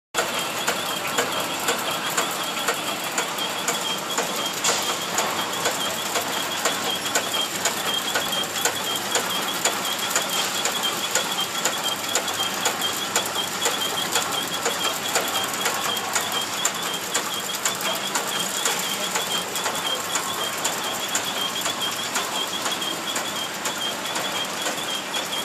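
ZHA-450S horizontal flow-wrapping machine running steadily as it packs batteries, with rapid mechanical ticking and a steady high whine.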